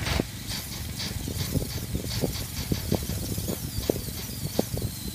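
Lure-coursing machine running, its motor humming low while the line pulls the lure over the pulleys with a faint high whine that slides in pitch, over a run of irregular quick clicks.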